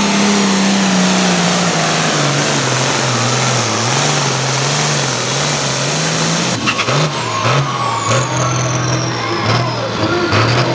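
Turbocharged 466 cubic inch diesel of a Ford 9600 hot farm pulling tractor at full throttle under the sled. About two seconds in its speed drops and wavers as the load builds. About six and a half seconds in the engine note falls away as the pull ends, and a high turbo whine winds slowly down in pitch, with a few sharp cracks.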